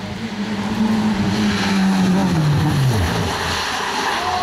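Small rally car's engine running hard at high revs, its note dropping away about two to three seconds in as it comes off the throttle, with a hiss of tyre and road noise. Near the end come several quick rises and falls of the revs as it slides through the bend.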